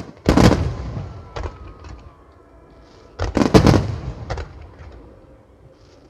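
Aerial firework shells bursting: a loud boom about a third of a second in, a few smaller bangs after it, then a quick cluster of several booms about three seconds in, each trailing off in echo.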